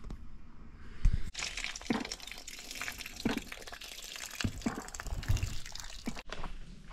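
Water pouring in a stream from a hard-sided cooler's drain spout and splashing onto sandy ground, starting just after a knock about a second in and cutting off shortly before the end.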